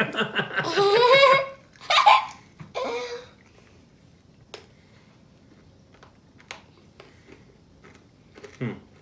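A man laughing heartily in pulsing bursts, with two shorter bursts of laughter or voice following, then a few faint mouth clicks and a brief vocal sound near the end.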